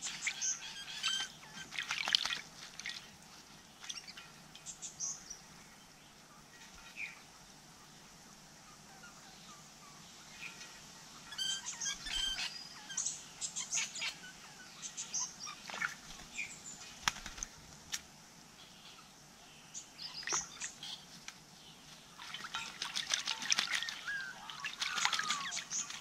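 Crimson rosellas splashing and flapping as they bathe in a shallow bird bath. The water splashes in bursts at the start, around the middle and through the last several seconds, with a few short bird calls between.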